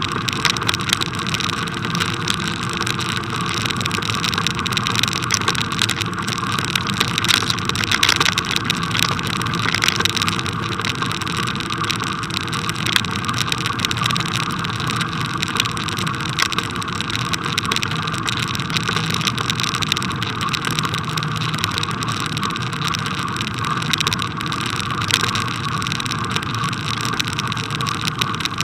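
Bicycle riding over a packed-snow path, heard through a camera fixed to the bike: a steady noise of tyres on snow with frequent small rattles and knocks from the loose camera mount.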